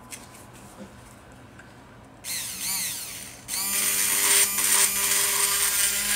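Small handheld electric mini drill boring a hole into a wooden spatula handle. Its whine starts about two seconds in with a wavering pitch, then from about halfway runs louder and steadier.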